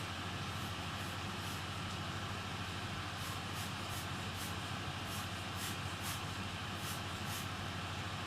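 Hot-air rework tool blowing with a steady hiss and low hum, heating all around a laptop power jack's solder joints to melt them free. A run of faint, quick high ticks comes in about three seconds in and stops shortly before the end.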